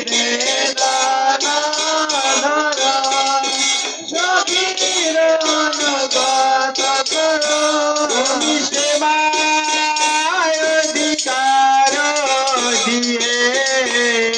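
Devotional kirtan: men singing a chant, with a two-headed mridanga drum and small hand cymbals keeping a steady, fast beat.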